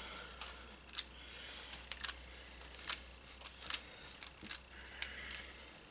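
Scattered light metallic clicks and taps, irregularly spaced, as a 13 mm deep socket is handled and fitted onto a nut, over a steady low hum.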